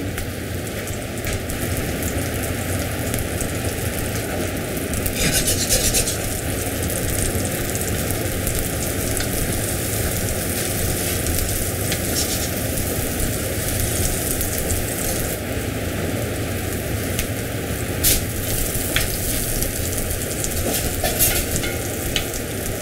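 Wagyu beef patties and a thick onion slice sizzling in olive oil in a frying pan: a steady frying hiss, briefly louder about five seconds in, with a few sharp crackles of spitting fat later on.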